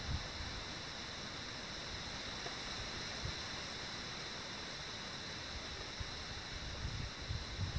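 Steady outdoor background hiss with a few faint, steady high-pitched tones running through it.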